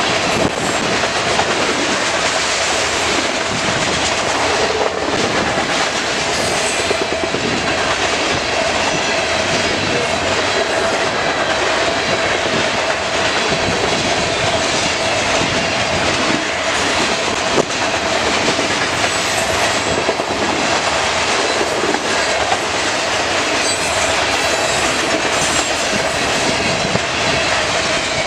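CN freight train's covered hopper cars rolling past: a steady rumble and clatter of steel wheels on the rails, with a steady ringing tone running through it.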